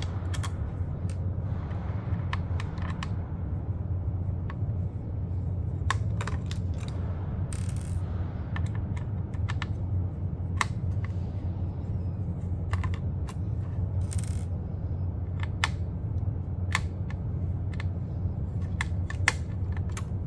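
Scattered small metal clicks and taps as a small screwdriver backs out the screws of a metal battery cover and the screws are handled and set down, with a couple of brief scrapes. A steady low hum runs underneath.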